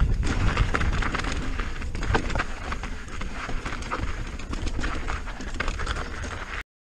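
Mountain bike riding down rocky dirt singletrack: tyres crunching on gravel, with a steady run of clicks and knocks as the bike rattles over stones, and wind rumbling on the camera microphone. It cuts off suddenly near the end.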